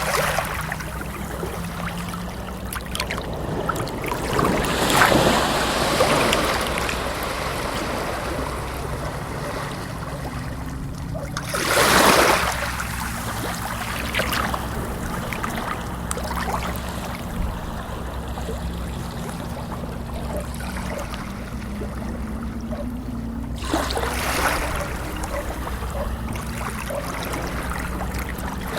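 Water washing in swells several seconds apart, over a steady low hum.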